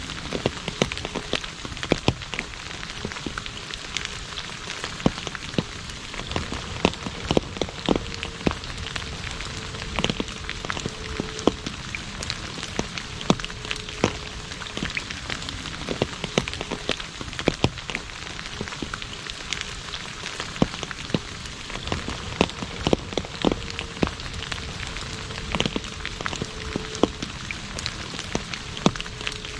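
Steady rain falling on an asphalt road: an even hiss with many distinct drops splashing close by.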